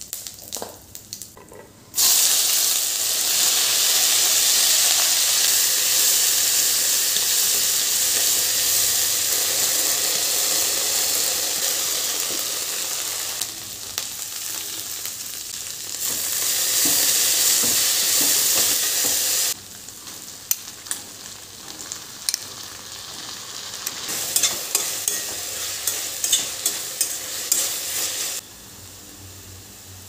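Cumin seeds and dried red chillies crackling faintly in hot oil in a stainless-steel kadai. About two seconds in, chopped okra goes into the oil and sets off a sudden loud sizzle, which swells again when chopped onion is added. In the second half the frying is quieter, with the wooden spatula clicking and scraping against the steel pan as the vegetables are stirred.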